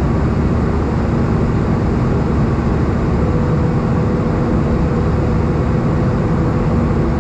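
Steady jet engine and airflow noise inside an Airbus A320's cabin in flight: a low, even rush with a faint steady hum, and a second higher hum joining about three seconds in.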